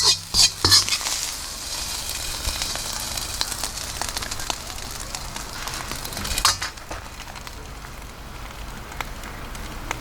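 Fried rice sizzling in a hot wok over a wood campfire, with sharp crackles from the fire. Loud hissing surges in the first second and again about six and a half seconds in, then a quieter, steady sizzle.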